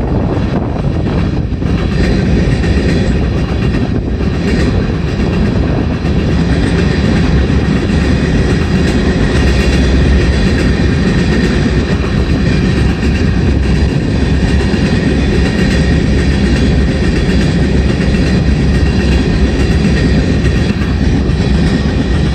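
Freight train of covered hopper cars rolling past, a steady rumble of steel wheels running on the rails.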